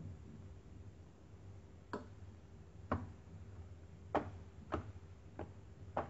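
Six sharp knocks starting about two seconds in, roughly one a second: a silicone dessert mould filled with soft custard being tapped on a granite counter to settle and level the layer. A low steady hum runs underneath.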